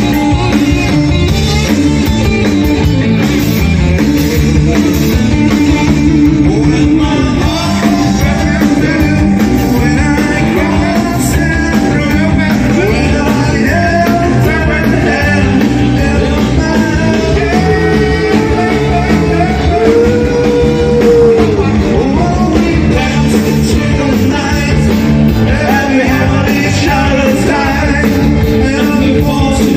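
Live rock band playing an upbeat rock-and-roll song: electric guitar, bass guitar, keyboard and drums, with a man singing lead through the PA.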